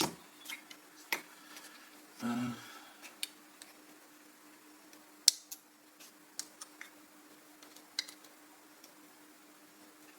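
Scattered light clicks and taps of small lithium battery packs and plastic battery-case pieces being handled and set down, the sharpest click about five seconds in.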